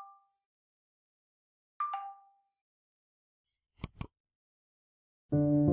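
A two-note chime rings twice, each a higher and a lower tone fading out. Two quick sharp clicks follow about four seconds in, and soft piano music begins near the end.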